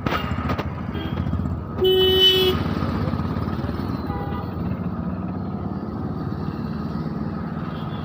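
Road traffic running steadily with a low engine rumble, and a vehicle horn honking once for under a second about two seconds in, the loudest sound; a fainter short honk follows about four seconds in.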